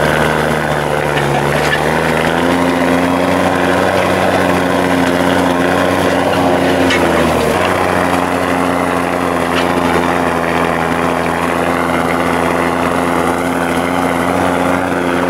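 Deutz tractor diesel engine running steadily under load while pulling a disc stubble cultivator, heard from inside the cab with the rear window propped open. Its note rises slightly about two seconds in and dips briefly around seven seconds.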